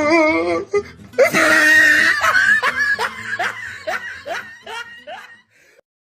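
Laughter sound effect: a loud burst of laughing about a second in, then a run of short "ha" pulses that slow and fade out over a few seconds.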